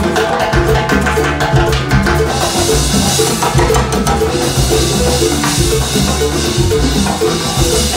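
Live salsa band playing, with the drum kit and Latin percussion, congas and timbales, carrying a steady driving rhythm.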